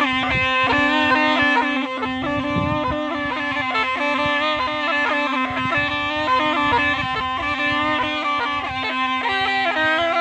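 Snake charmer's been (pungi), the gourd-bodied twin-pipe reed instrument, playing a melody of quick, changing notes over a steady low drone.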